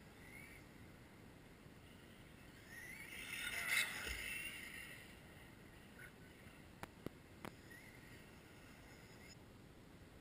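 A radio-controlled car passing at a distance: a faint motor whine swells to a peak about four seconds in, then fades. A few seconds later come three short sharp clicks.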